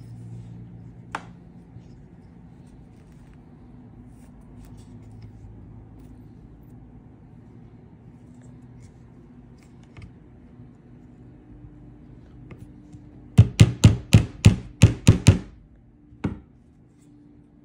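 A quick run of about nine sharp knocks in two seconds, then one more a second later, over a faint steady low hum.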